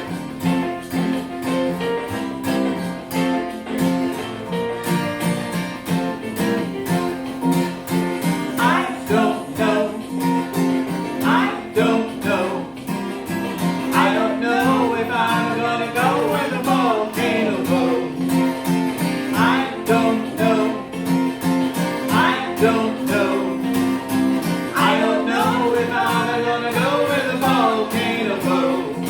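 Music: a steady plucked-string accompaniment, with a singing voice coming in about nine seconds in.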